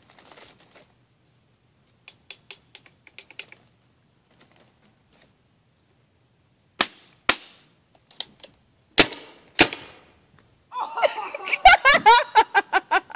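CO2 paintball gun firing: four sharp single shots, then a quick string of shots near the end with a voice crying out over them.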